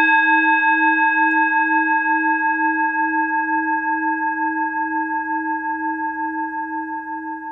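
A singing bowl ringing on after a single strike: a low tone with several higher overtones, wavering with a slow pulse as it gradually fades.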